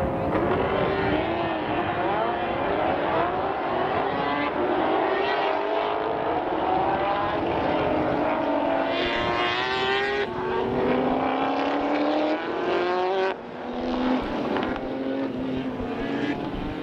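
Several racing cars' engines running hard on track, their notes overlapping and climbing in pitch as they accelerate, dropping back at each gear change.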